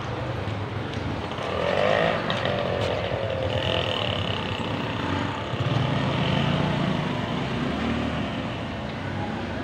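Street traffic: motor vehicles going past, louder about two seconds in and again around six seconds in.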